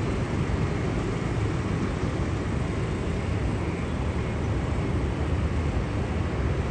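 Steady rumble of jet aircraft engines heard from a distance, even in level with no distinct events.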